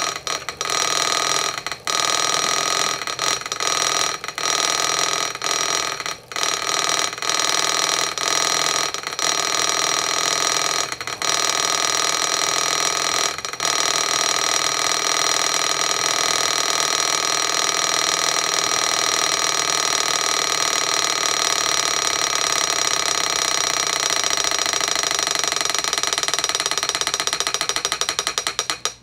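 Miniature Ringbom free-displacer Stirling engine running fast. Its floating displacer taps against its stops so rapidly that the taps merge into a steady metallic rattle. In the first half the rattle breaks off briefly now and then, as the displacer skips beats at high speed; near the end it slows into separate taps.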